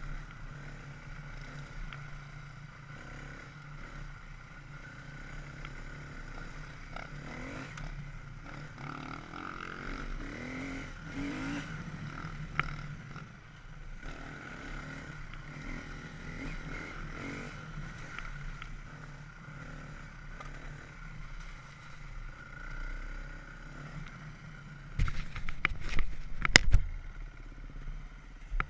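Husqvarna FE 350S four-stroke single-cylinder dirt bike engine running steadily as the bike rides a trail. Near the end, a burst of loud knocks and clatter.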